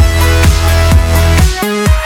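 Electronic dance music with a heavy bass line and a steady drum beat, loud throughout, with a brief drop in the bass near the end.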